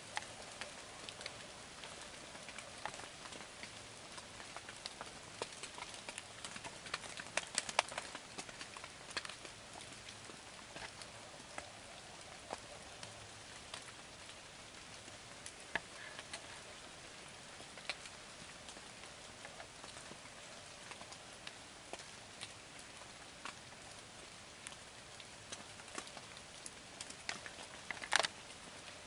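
Steady light rain, with scattered drops ticking sharply. A quick run of louder ticks comes about a quarter of the way in, and the loudest single tick comes near the end.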